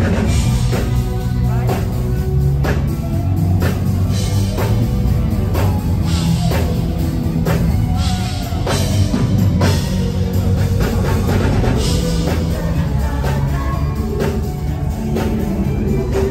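A band playing a pop-rock song with a steady drum beat and heavy bass, with vocals over it.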